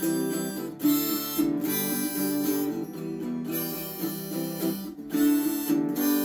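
Acoustic guitar strummed in chords, a stroke about every second with ringing chords in between.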